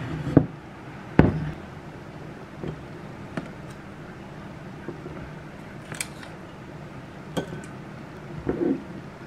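Metal kitchen tongs clicking and tapping against a glass bowl and a plastic container while cucumber kimchi is served: about six separate sharp clinks and knocks, the loudest about a second in.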